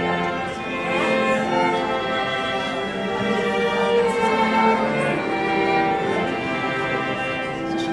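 Live string ensemble of violin and cello playing a processional piece, with long held notes.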